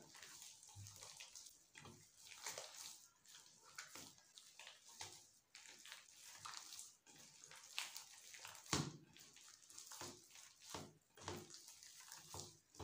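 Faint, irregular wet squishing of a hand kneading a soft, moist mince of boiled beef and chana dal with a raw egg in a bowl, with one louder squelch about nine seconds in.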